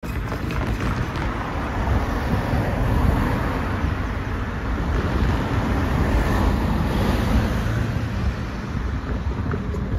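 Cars driving across a level crossing one after another close by, a steady rush of engine and tyre noise.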